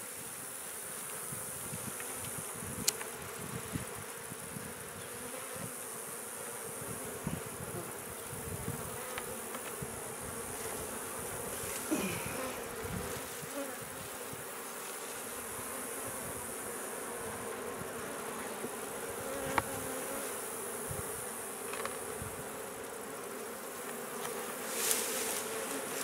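Honey bees buzzing over an open hive box with its frames exposed, a steady hum, with a few faint clicks.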